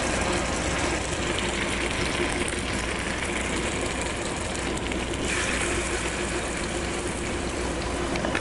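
Oil sizzling steadily in a frying pan as stuffed plantain patties fry, the sizzle changing about five seconds in as another patty goes into the oil.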